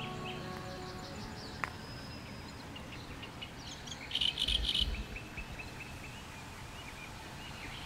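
Birds chirping and calling, with insects: quick series of short chirps, and a louder, buzzy cluster of calls about four seconds in.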